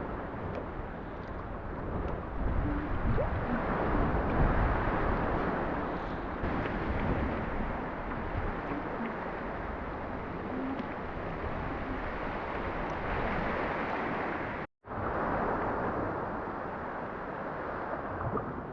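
Wind buffeting the microphone over sea water sloshing and waves, swelling and easing, with a brief cut to silence about fifteen seconds in.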